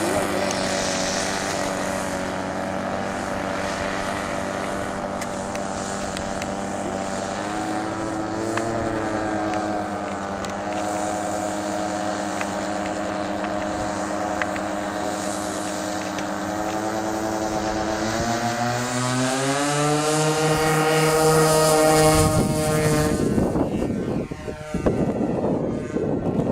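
Two OS 46 two-stroke nitro glow engines of a twin-engine radio-control model plane running, a steady buzz whose pitch rises about a third of the way through and climbs again near the end. In the last few seconds the engine tone gives way to wind buffeting on the microphone.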